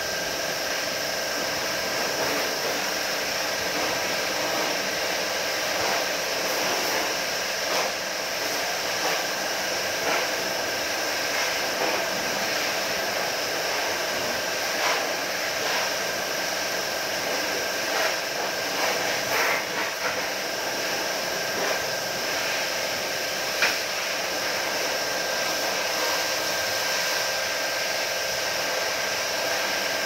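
Steady hiss of a handheld spray gun on a hose washing the coil of a window air conditioner, with a steady whine under it and a few brief spatters.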